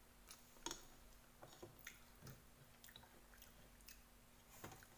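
Faint chewing of a mouthful of rice and egg, with scattered soft clicks.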